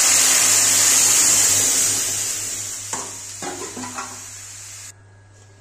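Boiled moong dal poured into a kadai of hot oil and tempered spices, setting off a loud sizzle that slowly dies down over a few seconds and then cuts off abruptly about five seconds in.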